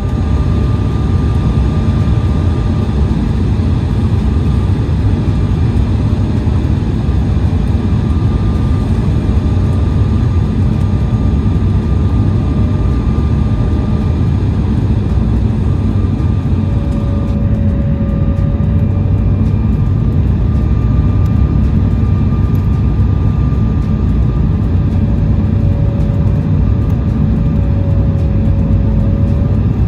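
Jet airliner cabin noise on final approach: a steady rumble of engines and rushing air heard from a window seat over the wing, with faint engine whine tones coming and going. The high hiss eases a little about halfway through.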